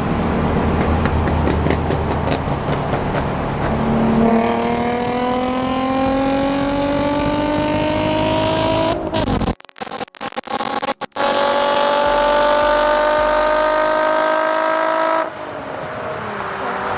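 Car engine accelerating hard, its pitch climbing steadily for about five seconds, then a brief broken gap and a second rising pull in the next gear, then easing off a little past the three-quarter mark.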